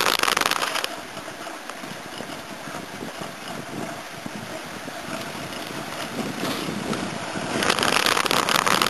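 Wind buffeting the microphone of a camera moving along a road. It is loud for about the first second, drops to a softer rushing hiss through the middle, and turns loud and gusty again near the end.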